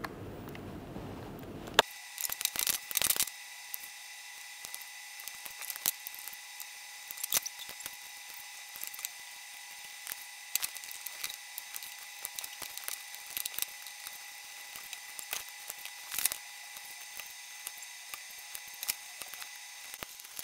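Scattered clicks and taps of white plastic ClicBot robot modules being handled and snapped together, beginning about two seconds in with a quick cluster of clicks, over a faint steady high hum.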